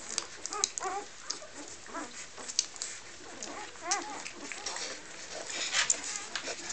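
Three-day-old puppies giving short, high, squeaky whimpers several times while nursing, over faint small clicks, with a brief rustle near the end.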